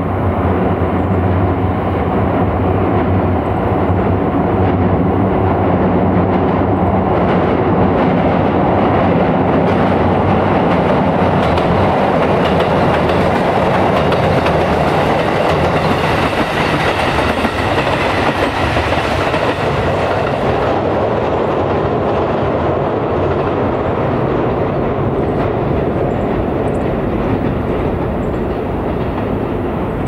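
JR Kyushu KiHa 220 diesel railcars running past: a diesel engine drone with the wheels rumbling on the rails. It grows loudest as the train passes close, about halfway through, and then fades away.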